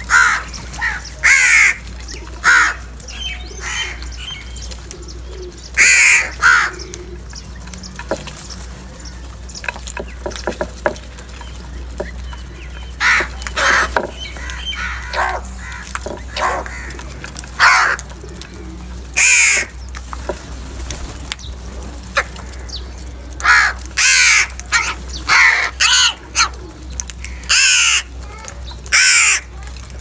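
A flock of house crows cawing as they squabble over food, harsh calls coming in bunches of several at a time, some overlapping, with short lulls between. The calling is densest near the end.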